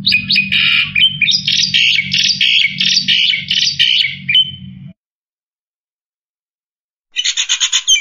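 Black-winged starling (jalak putih) singing a loud, fast chattering song of rapidly repeated notes for about five seconds over a faint low hum. After a pause it gives a second short burst of quick notes near the end.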